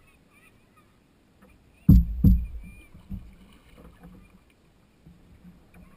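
Two dull knocks on a canoe's hull about two seconds in, close together, then a softer one about a second later, picked up by a GoPro suction-cupped to the canoe.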